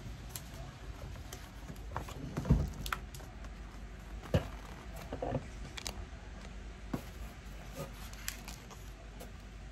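Handling and leafing through a book: scattered soft taps and clicks, with a louder thump about two and a half seconds in and a sharp knock a couple of seconds later.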